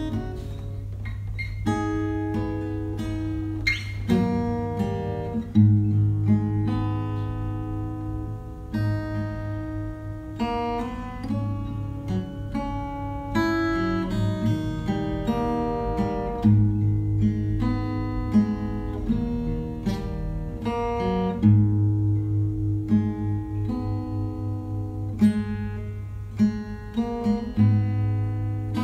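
Background music led by acoustic guitar, plucked and strummed, over a steady low bass line.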